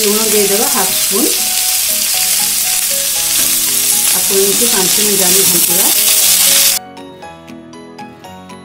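Shredded cabbage, carrot and capsicum sizzling loudly as they stir-fry in oil in a metal kadai, with a steel spatula scraping through them twice. The sizzle cuts off suddenly near the end, leaving soft background music.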